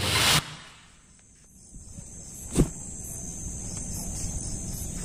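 Electronic dance music cuts off about half a second in. Night insects then trill steadily at a high pitch in quick regular pulses. A single sharp knock comes a little past halfway.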